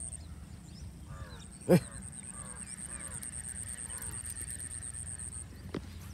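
A bird calling a series of short falling calls, about two a second, over a steady high-pitched insect drone. One sharp knock sounds a little under two seconds in.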